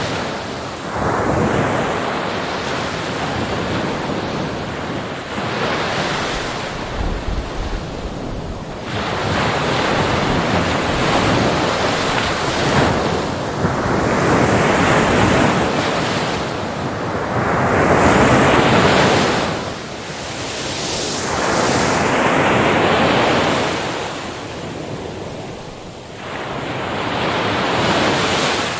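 Ocean waves breaking on a beach, the surf swelling and easing in surges every few seconds.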